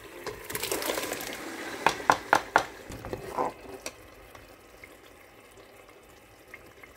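Blended tomato mix poured into a pot of tin tomatoes frying in oil, sizzling and splashing. About two seconds in come four sharp knocks on the pot, and one more a second later, then the fry settles to a fainter steady sizzle.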